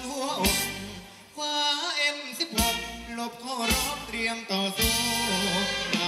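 Thai ramwong dance song played by a band, with a singer's melody over bass and a drum beat striking about once a second; the bass drops out briefly about a second in, then the beat comes back in.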